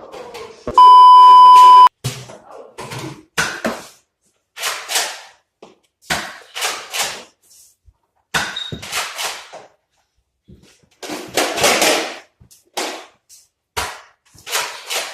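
A loud, steady beep tone at about 1 kHz, about a second long, near the start. Around it comes a run of short, sharp, irregular pops and thumps: foam-dart blasters firing and darts hitting.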